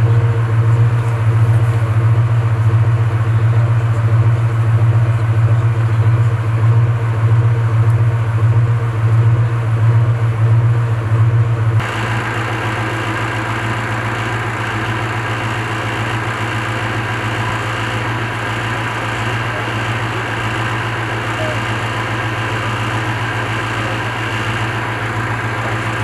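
Tracked armored vehicle's engine idling, a loud steady low hum with a slight pulse. About halfway through it changes abruptly to a quieter, even hum with a steady higher whine.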